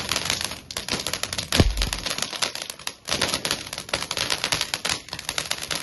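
Firecrackers going off in a rapid, dense crackle of small pops, with a heavier bang about a second and a half in.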